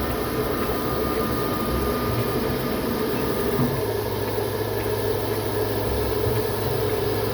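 A machine running steadily, a continuous mechanical hum and whir whose low tone shifts about halfway through.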